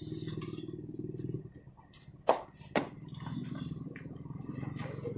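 Yamaha motorcycle engine idling with a low, even purr that fades briefly in the middle. Two sharp metallic clicks come about half a second apart near the middle.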